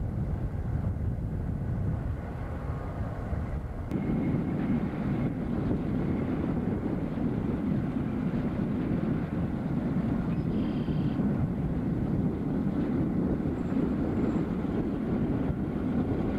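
Burlington Northern diesel locomotives hauling a freight train through a rail yard, heard as a steady low rumble from a distance. The rumble grows louder and fuller about four seconds in.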